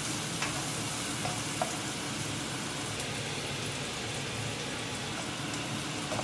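Onion and red capsicum sizzling steadily as they fry in a non-stick pan, with a few light clicks of a spatula stirring them in the first couple of seconds.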